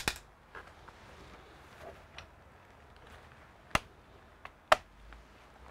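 Sharp plastic clicks and knocks of a Dell Alienware 15 R3 laptop's chassis being handled and shifted: a quick pair at the start, a few small taps, then two louder knocks about a second apart near the end.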